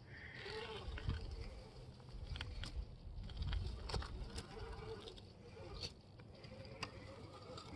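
Electric RC rock crawler driving over rocks: the faint whine of its small motor rising and falling, with scattered clicks and scrapes of the tyres and chassis on stone and low rumbles of wind on the microphone.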